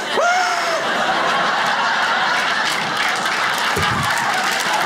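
A theatre audience laughing steadily after a punchline.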